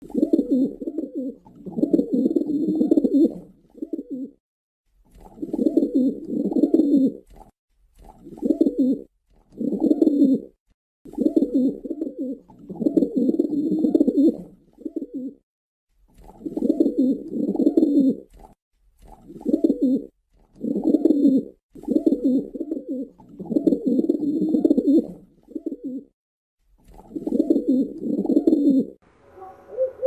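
Rock pigeons cooing: low, rolling coos in phrases of one to three seconds with short pauses, repeating over and over. About a second before the end, a clearer, higher dove call takes over.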